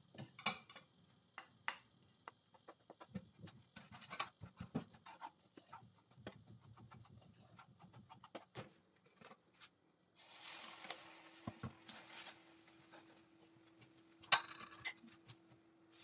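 Wooden spatula scraping and stirring a crumbly mix of milk powder and ghee in a pan: faint irregular scrapes and clicks, a couple of seconds of denser rasping about two thirds in, and one sharp knock near the end.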